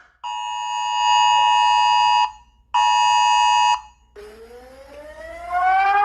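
Emergency alert alarm tone: two long, steady electronic tone blasts, the first about two seconds and the second about one, then a siren that starts about four seconds in and rises steadily in pitch.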